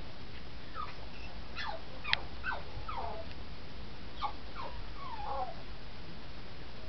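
Pug whining in a string of short, falling whimpers, with one sharper cry about two seconds in: the dog's usual crying when it wants to get to the pet birds.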